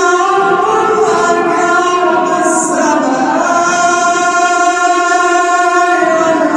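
A male reciter chanting the Quran in the melodic tajweed style, drawing out the syllables. About two and a half seconds in, he holds one long note, which breaks off near the end before the voice picks up again.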